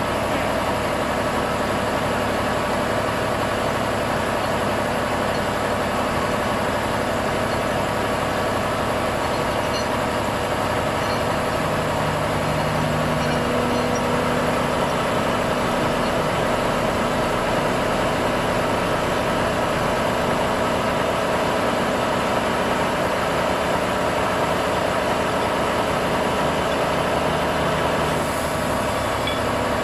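Heavy diesel engine idling steadily, an even drone that holds throughout.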